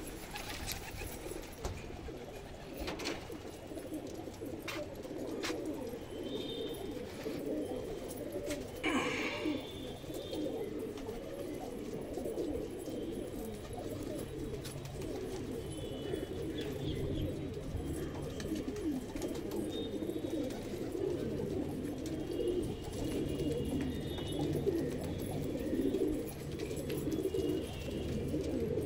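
Several domestic pigeons cooing continuously, their calls overlapping into a steady low warble. It is the courtship cooing of pigeons in breeding-season mood, puffing up and displaying.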